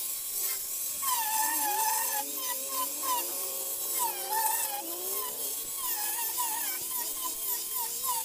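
Electric angle grinder with a sanding disc working over a wooden cabinet, its motor whine dipping and recovering in pitch as the disc is pressed into the wood, over a steady hiss of sanding.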